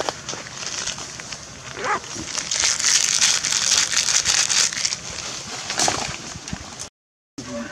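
Dry leaves and twigs rustling and crackling as macaques move through leaf litter and brush, densest in the middle. Two short animal cries come about two seconds in and near the end. The sound cuts out abruptly for a moment just before the end.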